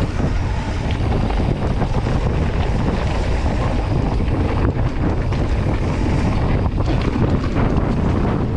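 Wind buffeting the microphone of a mountain bike's on-board camera during a fast descent, over the rolling of knobby tyres on a dirt trail. Frequent small clicks and rattles come from the bike running over the rough ground.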